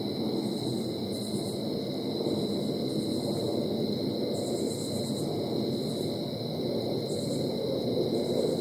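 Low, steady rumble of a jet aircraft overhead, a noise the recordist finds strange, under a constant high-pitched insect drone and bursts of insect chirping.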